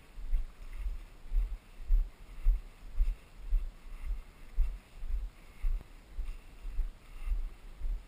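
Footsteps on a dirt trail, about two low thuds a second, each footfall jolting the body-carried camera.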